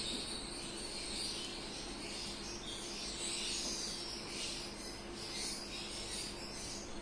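Background ambience: faint high-pitched chirping over a steady low hum.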